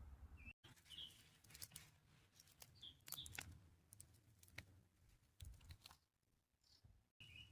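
Near silence, with a few faint short bird chirps and light scattered clicks and rustles.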